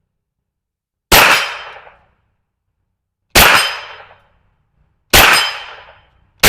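Smith & Wesson FPC 9mm carbine firing Federal 115-grain FMJ: four single shots spaced about one and a half to two seconds apart, each dying away over about a second, the last right at the end.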